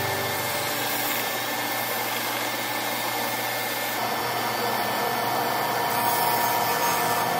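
Bench sanders running: a belt sander, then a disc sander from about four seconds in, a steady whirring hiss with a faint thin whine.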